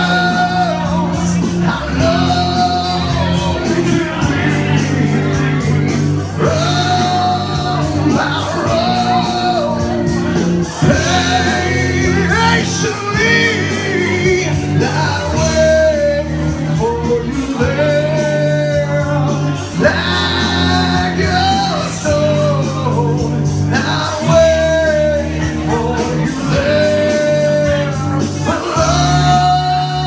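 A man singing loudly into a handheld microphone in a half-shouted rock style, with long held notes, over backing music with a steady bass line.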